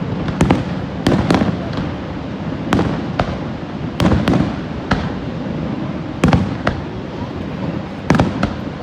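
Aerial fireworks going off in a quick, irregular string of sharp bangs, a dozen or more, with some closely doubled. A steady rushing noise runs underneath.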